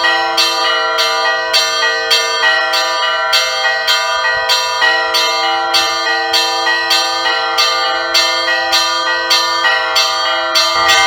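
Russian Orthodox church bells ringing the Easter peal (trezvon): small bells struck in quick, even succession, about two or three strikes a second, over the steady hum of larger bells.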